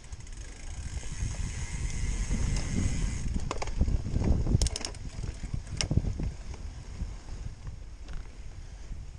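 Mountain bike riding over a dirt trail: a steady low rumble from the tyres rolling, with a few sharp clacks and rattles from the bike about four to six seconds in.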